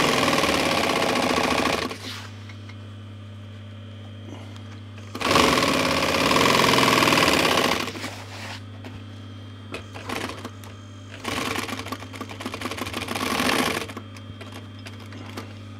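Industrial sewing machine stitching a seam in runs: it sews for about two seconds, stops, sews again for nearly three seconds about five seconds in, and makes a shorter, quieter run later on. Between runs its motor keeps humming steadily.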